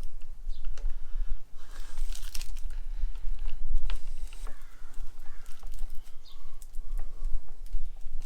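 Small plastic-and-metal clicks and a brief rustle as the LED taillight and its mounting screws are handled and fitted, over a steady low rumble.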